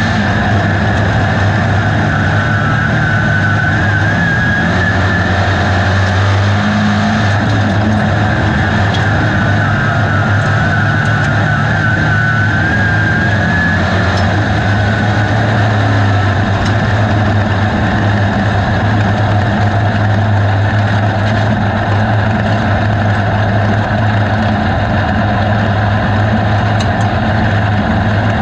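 A USRA B-Modified dirt-track race car's V8 engine running hard at racing speed, heard from inside the cockpit. A high whine rises and falls over the first half.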